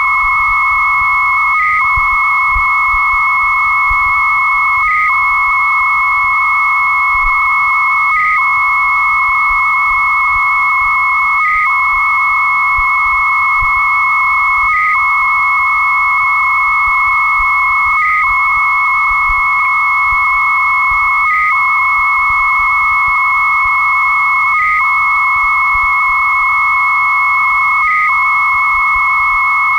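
Two 300-baud modems exchanging data over a telephone line during a file transfer: a steady high carrier tone and a lower buzzing, warbling data tone sound together. Both break off for an instant about every three seconds.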